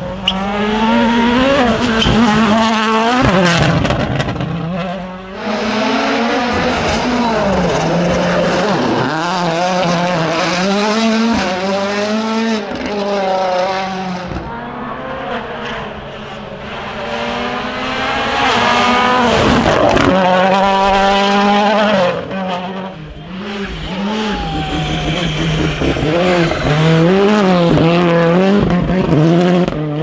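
Turbocharged four-cylinder rally cars, a Toyota Yaris WRC among them, driven flat out past the roadside one after another. The engines rev hard, their pitch climbing and dropping again and again through gear changes and lifts.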